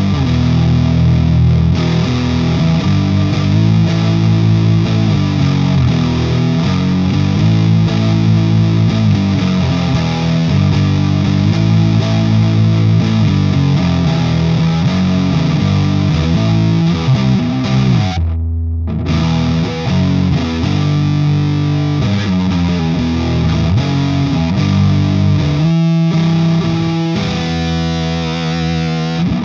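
Electric guitar played through a Frank the Anvil FX Kitsune fuzz pedal, a hand-built modified Big Muff, with the mid switch all the way right for a plain unmodded Big Muff voicing. The chords are thick and heavily fuzzed with long sustain, and stop briefly about two-thirds of the way through.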